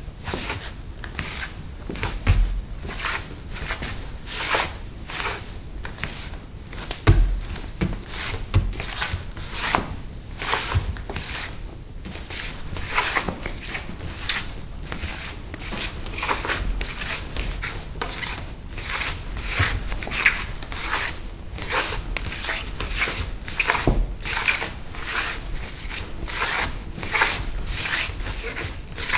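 Bare feet scuffing and stepping on a wooden floor: a long, irregular run of short rubbing scrapes, with an occasional heavier footfall thud.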